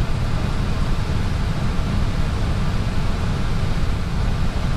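Steady low rumble with a hiss over it: the constant background noise of an Airbus A320 cockpit.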